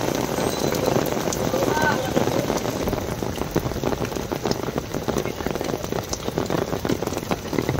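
Steady rain falling on a waterlogged, puddled ground, a dense hiss full of fine drop clicks.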